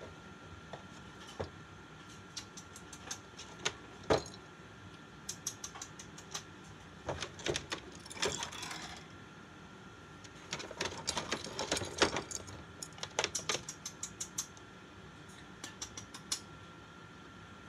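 Rainbow lorikeet scrabbling about inside a cardboard box in its wire cage: irregular runs of quick clicks and taps from its feet and beak on the cardboard and cage wire, with a short scratchy rustle about halfway through.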